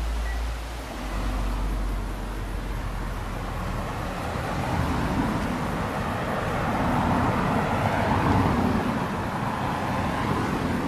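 Steady rushing of a mountain stream, growing louder from about four seconds in and easing off near the end.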